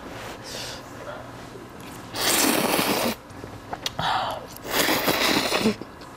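Jjamppong noodles slurped off chopsticks in three loud sucks: a second-long one about two seconds in, a short one at four seconds, and another of about a second just after.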